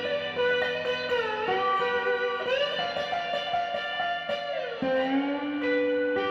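Background music: an electric guitar plays a melody of held notes, sliding or bending up and down in pitch several times.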